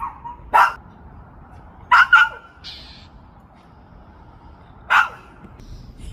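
A dog barking: four short barks, a single one, then a quick double, then another a few seconds later.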